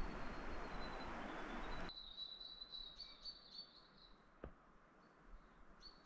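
Rustling of movement through bush undergrowth that cuts off abruptly about two seconds in. Then a small forest bird's high, rapid chirping twitter fills the quiet, returning briefly near the end.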